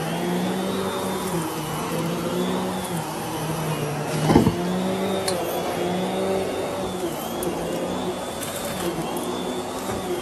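Vacuum cleaner with a powered carpet head running steadily as it is pushed back and forth over carpet, its hum wavering slightly and regularly in pitch. About four seconds in there is a single sharp knock.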